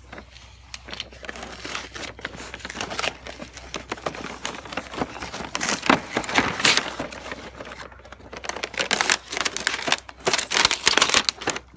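Clear plastic film and cardboard packaging crinkling and crackling as a boxed dig kit is opened and its plastic cover pulled out. The noise comes in irregular bouts, loudest about halfway through and again near the end.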